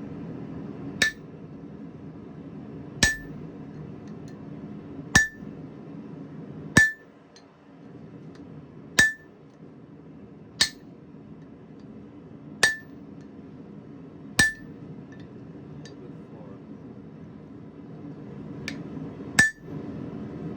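Blacksmith's hammer striking a punch into hot steel on the anvil: ten or so sharp ringing blows, about one every two seconds, over a steady low hum.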